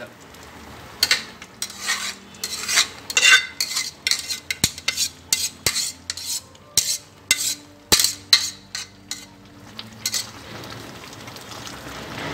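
A metal spoon scraping and knocking against a metal strainer and an aluminium pot as semi-cooked rice is spooned out and spread in a layer for biryani. It is a quick, irregular run of scrapes and clinks, some of which ring briefly, and it stops about ten seconds in, leaving a faint hiss.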